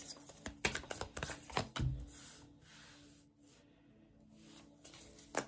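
Tarot cards being shuffled and handled: a quick run of papery flicks and taps for about two seconds, ending in a soft thump. It goes quiet for a few seconds, then there are a few more card flicks near the end.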